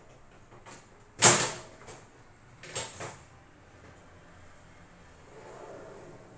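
Metal baking tray being slid into an oven on its rack runners: one loud clank about a second in, then two lighter knocks near three seconds as the tray is pushed into place.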